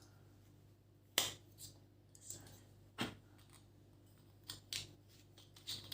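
Scattered sharp clicks and light knocks from plastic ring-light parts and packaging being handled, with a louder click about a second in and another about three seconds in.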